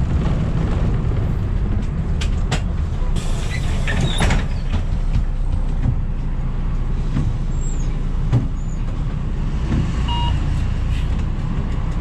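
Inside a city bus pulling into a stop: a steady low rumble from the bus, a short burst of hiss about three seconds in, and a few scattered knocks and rattles.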